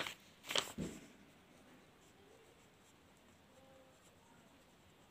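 Pen writing on paper: faint scratching strokes, a few more distinct ones in the first second, then very quiet.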